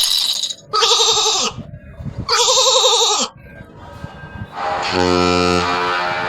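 Built-in notification and ringtone sounds of a Huawei Ascend G5 phone played one after another: two short calls with a quivering pitch, about a second each, then a low sustained tone that begins about five seconds in.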